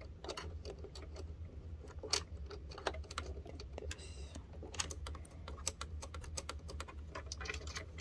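Irregular small clicks and taps of fingers working the bobbin case and plate parts of a Singer sewing machine, fiddling with a part that won't seat, over a steady low hum.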